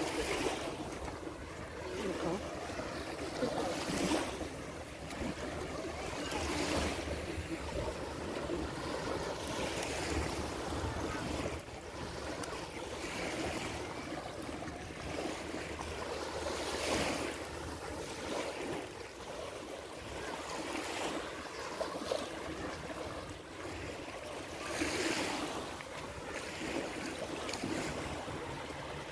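Small Adriatic Sea waves washing up on a sandy shore: a steady wash with a soft surge of surf every few seconds.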